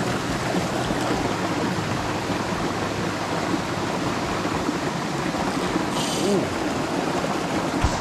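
Small rocky creek running over stones: a steady, even rush of flowing water, with a brief high hiss about six seconds in.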